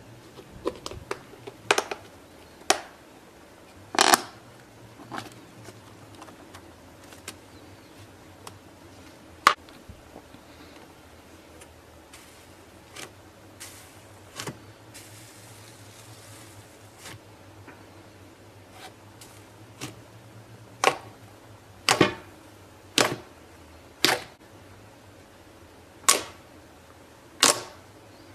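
Slime being pressed and poked, giving sharp popping clicks as air pockets burst: scattered at first, then about one a second near the end.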